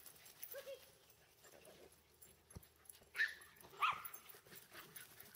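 Small dogs yipping while they play. Two short, sharp, high-pitched yips stand out about three and four seconds in, with fainter yelps before them.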